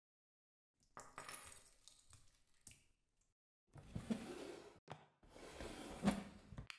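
Hands rummaging among small hard objects, which clink and rattle in three bursts, with a couple of sharper knocks in the second half.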